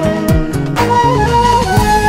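Instrumental interlude of a Turkish ilahi arrangement: a flowing melody line with ornamented turns over regular percussion hits and deep drum hits that drop in pitch.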